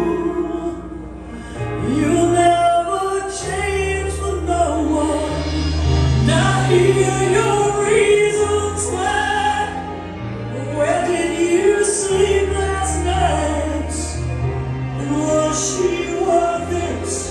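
A recorded song with a female lead voice singing long held, wavering notes over sustained bass notes.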